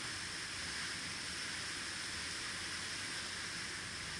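Steady, even hiss of wind on open water, with no change in level.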